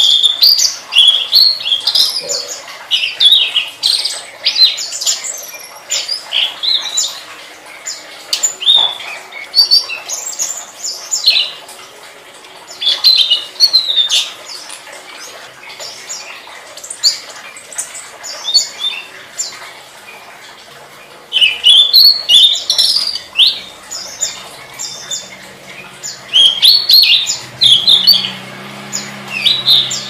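Tledekan (blue flycatcher) singing: loud, rapid, high-pitched chirping and squeaky phrases in repeated bursts, with a gap of a few seconds past the middle.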